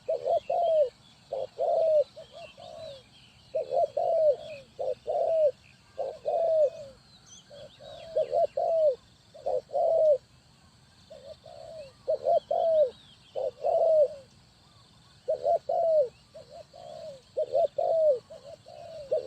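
Spotted dove cooing: short coos repeated in phrases of two to four, a new phrase every second or two. Faint chirps of small birds sound higher up in the background.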